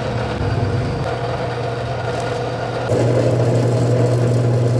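Benchtop drill press motor running steadily with a low, even hum. About three seconds in it gets louder and rougher as the spinning bit cuts into and through wood.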